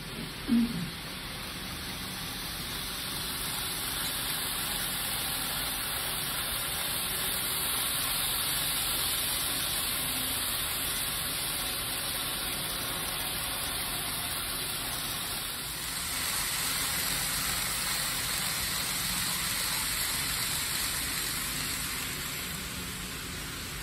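N scale Shinkansen 100 series model train running along elevated track: a steady hissing running noise of wheels and motor that swells and eases as the train passes. There is one short knock about half a second in.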